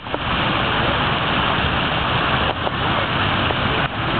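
Fountain water jets splashing steadily into a stone basin, an even rushing hiss with a couple of brief dips in level.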